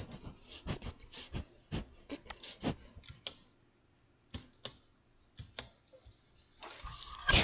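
Computer keyboard keys tapped in quick succession for about three seconds, then a few scattered clicks, with a short burst of noise near the end.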